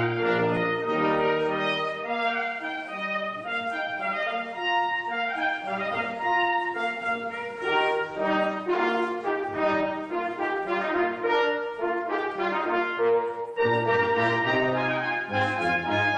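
Brass quintet of two trumpets, French horn, trombone and tuba playing a piece together. The tuba's deep bass notes sound at the start, thin out in the middle, and come back strongly near the end.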